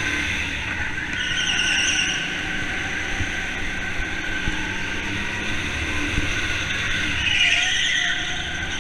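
Go-karts running steadily in a race, with tyres squealing briefly through corners about a second in and again near the end.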